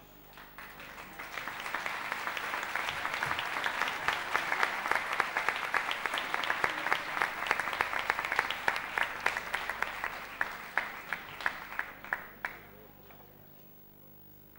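Audience applauding: the clapping builds over the first couple of seconds, holds full for several seconds, then thins to a few scattered claps and stops about twelve seconds in.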